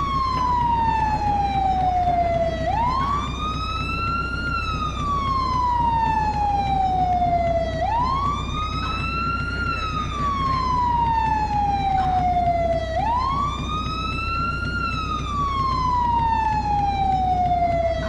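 American fire truck siren on its wail setting: a long tone that climbs to its peak and then slowly falls, over and over, about one cycle every five seconds, above a steady low rumble.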